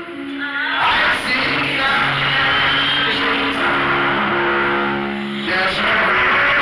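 Church band music playing sustained keyboard chords that change every second or so, with some singing.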